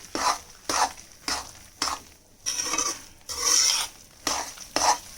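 Besan roasting in ghee being stirred in a kadhai, the utensil scraping against the pan in quick repeated strokes, a little under two a second, with two longer scrapes in the middle.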